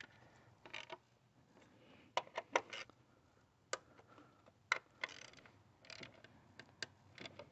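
Faint, irregular clicks and ticks of a hand ratchet and socket running in and tightening the ignition coil bolts, with a few sharper metal taps of the tool.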